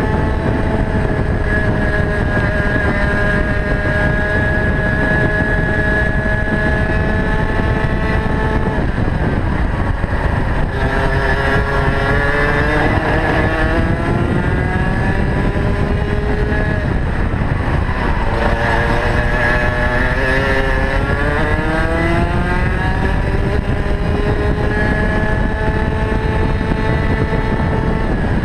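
Rotax Max 125cc two-stroke kart engine at racing speed, heard onboard. The revs hold high and sag slightly at first, drop about a third of the way in, climb again, drop a second time just past halfway, then climb and hold near the end, over a steady low rumble.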